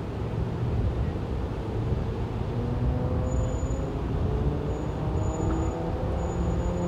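Road traffic with vehicle engines running as a steady low rumble. From about halfway through, the engine tones rise slowly in pitch as a vehicle pulls away and accelerates.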